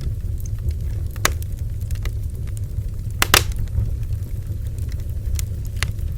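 Bonfire burning with a steady low rumble and scattered sharp crackles and pops of burning wood, the loudest a double pop about three seconds in.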